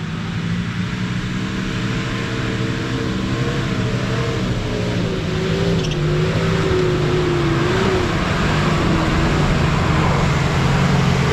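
Nissan Patrol GU wagon's engine running steadily under load as it climbs a steep dirt hill, growing louder as the vehicle approaches.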